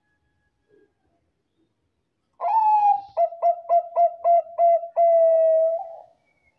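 Zebra dove of the Thai 'Bangkok' perkutut strain cooing one song phrase. It opens with a long note, follows with a quick run of about seven short clipped notes, and ends on a long held note.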